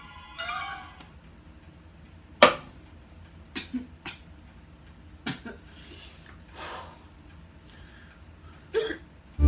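A man hiccuping: about half a dozen short, sharp hiccups at uneven intervals, the first, about two and a half seconds in, the loudest, with soft breaths between.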